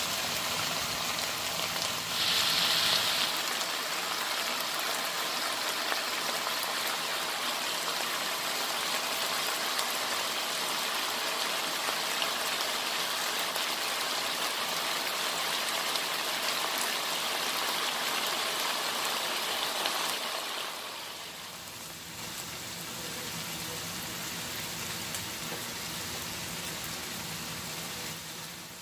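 Chicken and vegetables sizzling in a wok: a steady crackling hiss, louder for a moment about two seconds in and quieter from about twenty seconds on.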